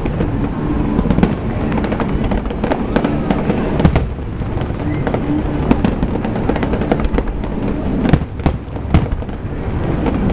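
Aerial fireworks display: a dense barrage of bursting shells and crackling stars, rapid bangs over a continuous rumble, with a few sharper reports standing out.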